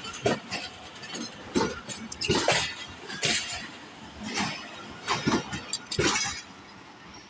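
Train wheels clanking over rail joints and points, a sharp metallic knock with a brief ring about once a second, over the low rumble of the moving train, the coaches rocking as they cross.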